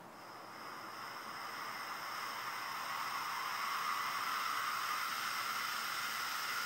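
Gaseous oxygen hissing steadily through a small PMMA hybrid rocket engine's fuel port and nozzle, growing gradually louder as the flow is brought up; the engine is not yet lit.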